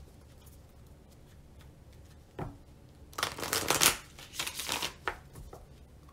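Tarot deck being shuffled by hand: a tap of cards, then a quick dense flurry of shuffling just after three seconds in, the loudest part, followed by a shorter run of shuffling and another tap.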